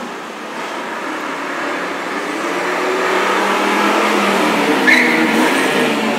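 Cars speeding past in a staged chase, engines revving and pitch gliding as they accelerate by, the sound building to a peak about four to five seconds in.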